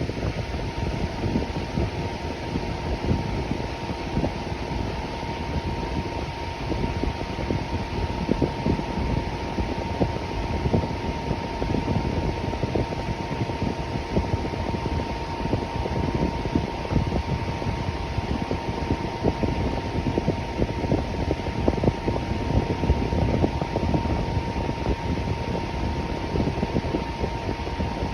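Electric fan running steadily: a constant rush of air with a faint steady tone over it and a low, irregular flutter.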